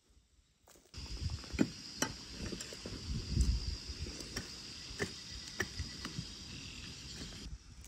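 Irregular dull knocks, roughly one a second, over a steady high-pitched insect chorus. Both begin abruptly about a second in, and the chorus cuts off just before the end.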